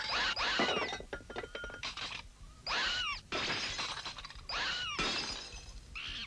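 Cartoon sound effect of china plates and bowls smashing: three crashes about two seconds apart, each followed by the ringing clatter of shards.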